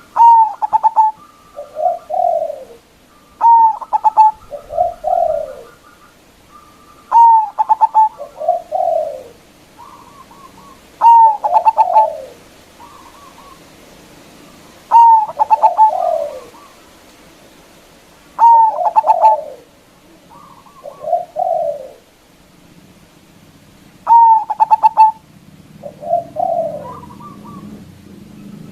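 Zebra dove (perkutut) singing its full, loud cooing song, the same phrase over and over about every four seconds: a faint trill, a loud stuttering note, then a lower falling coo.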